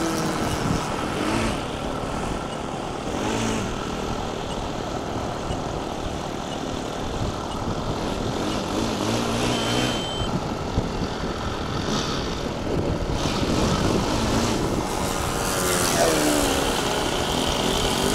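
ASP 61 four-stroke model engine of an RC Spacewalker II flying overhead, a steady propeller drone whose pitch rises and falls as the plane passes and changes throttle.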